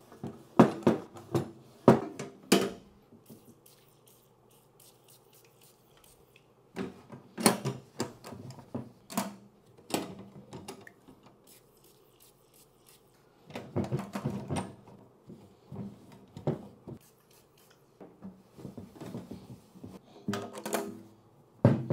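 Metal military ammo can being wiped out with a cloth and handled: rubbing with knocks and clunks from the metal box and its lid, in four bouts with short quiet gaps between.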